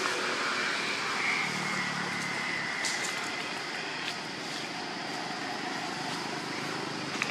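Steady rushing background noise of the kind passing road traffic makes, with a faint thin tone about a second in and a few light clicks near the middle.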